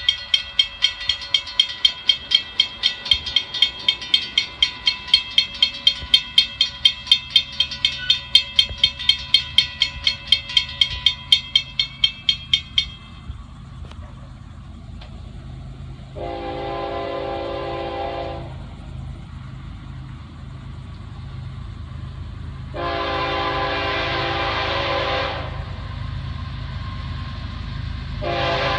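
Railroad crossing bell ringing rapidly, about three strokes a second, then stopping about thirteen seconds in. A low rumble of the approaching freight locomotive then builds, and its multi-note air horn sounds two long blasts and the start of a third, the grade-crossing warning signal.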